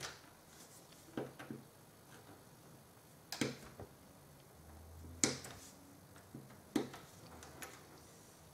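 Scattered sharp clicks and light knocks of small hobby tools and plastic kit parts being handled and set down on a workbench. There are about seven, a second or more apart, with the loudest about five seconds in.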